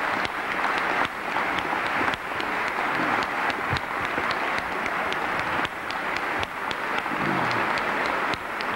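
A crowd of people applauding steadily, a dense patter of many hands clapping.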